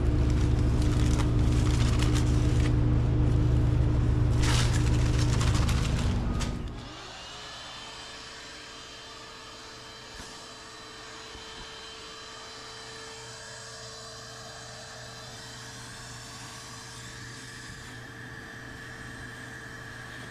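A loud electric motor runs with a steady low hum, then shuts off about seven seconds in and winds down, leaving a faint steady hum with a thin whine.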